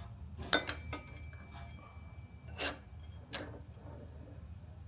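Steel pry bar clinking against the jaws of a bench vise as it is set in place: a few sharp metal clinks about half a second in, with a thin ring that hangs on for about two seconds. Then two short scraping clanks as the vise is worked.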